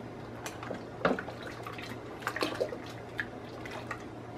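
Wooden spoon stirring a thick milk-and-coconut mixture in an enamel pot: soft liquid sloshing and scraping, with a few louder scrapes or knocks about a second in and a little after two seconds. A low steady hum runs underneath.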